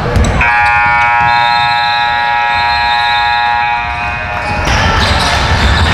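Basketball scoreboard horn blaring one steady, buzzy blast of about four seconds, starting about half a second in.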